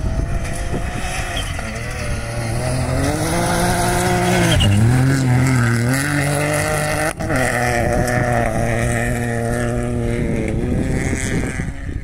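Ford Fiesta rally car's engine driving at speed on a gravel forest stage. The revs dip sharply about halfway as it takes the bend, then hold steady as it passes and fade away near the end.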